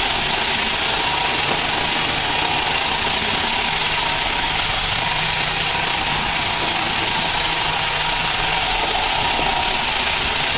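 Roomba robot vacuum running: a steady whir of its motor and brushes with a faint high whine.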